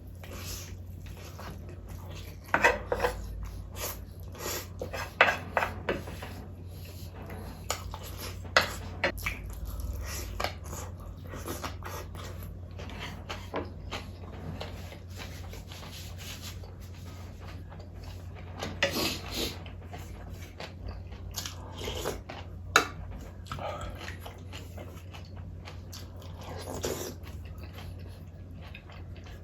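Close-up eating sounds: irregular bites and chewing, with short clinks of a spoon against a dish now and then, the sharpest about three-quarters of the way through, over a steady low hum.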